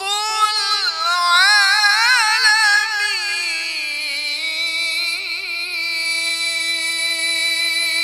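A man's voice chanting the Quran melodically (tilawat), with fast wavering ornaments in the first few seconds, then settling about four seconds in onto one long held note without a break.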